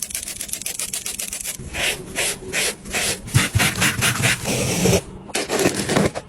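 Rapid back-and-forth rubbing strokes on a Nike sneaker being repaired, several strokes a second, with a short pause about five seconds in.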